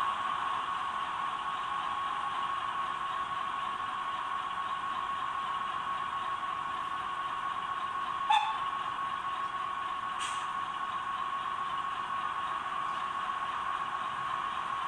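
Sound decoder of a Brawa H0 model of the DR E42 electric locomotive, playing its standing-still sound through the model's small speaker: a steady hiss with a thin steady whine. A short sharp click comes about eight seconds in.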